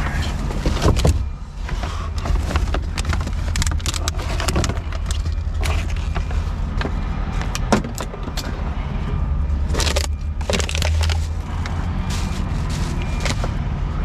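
Rubbish being rummaged by hand in a dumpster: plastic bottles and bags crinkling, cardboard boxes shifting and scattered clinks and knocks, over a steady low rumble.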